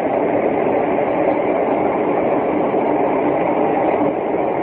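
A loud, steady rumbling drone with a faint hum in it. This is the unexplained night-time noise that the recorder cannot identify.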